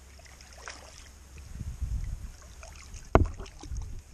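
Hooked carp splashing and thrashing at the surface as it is played in toward the landing net, with a sharp knock about three seconds in, over a steady rumble of wind on the microphone.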